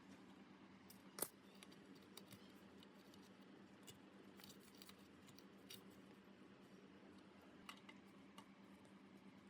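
Faint, scattered light clicks and taps, the sharpest about a second in, over a low steady hum.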